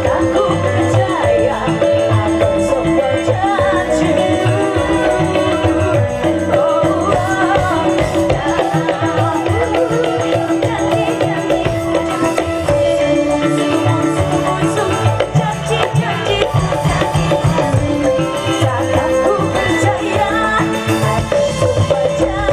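Live dangdut band music, loud and continuous: drum kit, a hand drum and shaker-like percussion under guitars and a wavering melody line, with a woman singing into a microphone.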